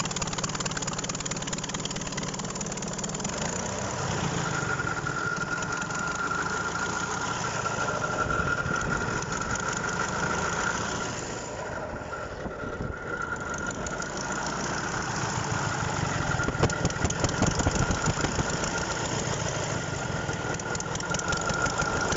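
Škoda DK661's diesel engine idling steadily while warming up, with a thin high steady whine over the running from about four seconds in. The sound dips briefly around the middle and comes back a little louder and rougher later on.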